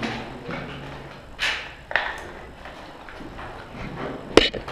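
Movement of an airsoft player and his replica: a brief swish of gear about one and a half seconds in, a click just after, and a single sharp crack near the end, the loudest sound.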